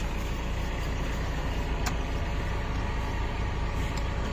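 Steady low engine rumble, with a couple of faint clicks about two and four seconds in.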